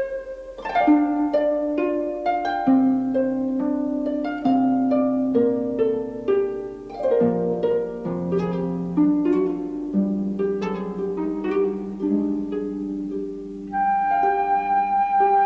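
Background music of quick plucked, harp-like notes over held lower notes, with a long steady higher note coming in near the end.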